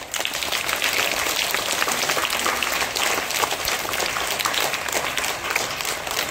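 A group of young schoolchildren clapping their hands in applause: many quick, uneven claps blending into a steady patter.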